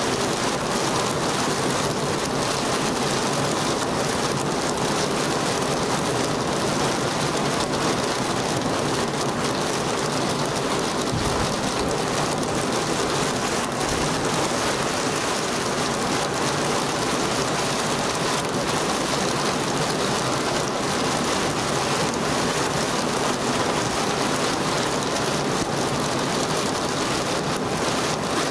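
Torrential summer downpour: heavy rain falling hard and steady on paved ground and roofs, an even hiss that never lets up.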